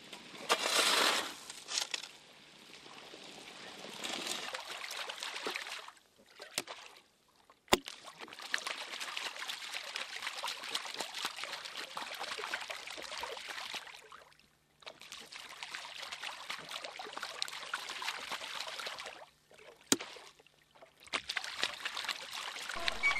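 River water being poured and sloshed while washing gravel for gold: a loud splash about a second in, then long spells of trickling and pouring broken by short pauses. There are two sharp knocks, one near the middle and one near the end.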